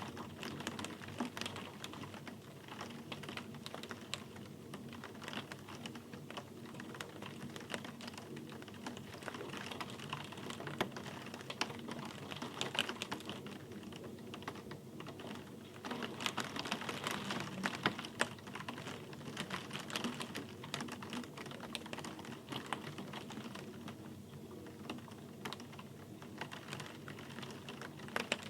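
Rain falling, with many separate drops clicking irregularly on a hard surface over a soft steady hiss.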